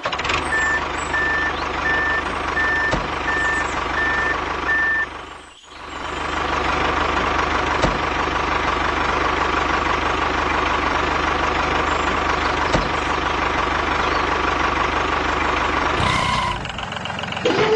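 A vehicle's reversing alarm beeps about eight times at an even pace over a steadily running engine, then stops about five seconds in. After a brief dropout the engine keeps running steadily.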